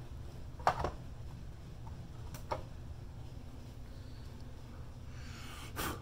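Handling noise from a phone being held and moved: a steady low hum with two short knocks in the first few seconds and a rustle near the end. The smoke detector's alarm does not sound.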